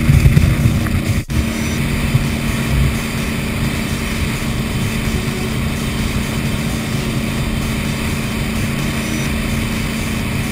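Cougar powerboat's inboard engine running steadily at speed, a constant drone under a rush of wind and water. The sound dips sharply for a moment about a second in.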